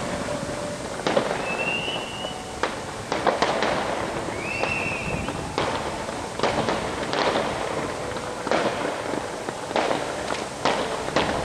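Fireworks display: aerial shells going off in irregular sharp bangs over a steady crackle, with two short high whistles in the first half.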